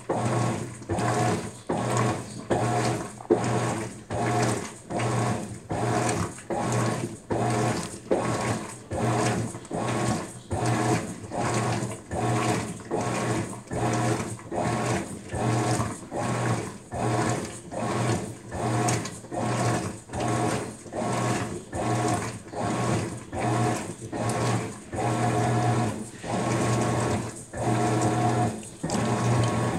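Maytag MVWX655DW1 top-load washer agitating a load of dish towels in deep, sudsy water during the wash cycle: the drive motor hums in an even back-and-forth rhythm, about three strokes every two seconds, with water swishing.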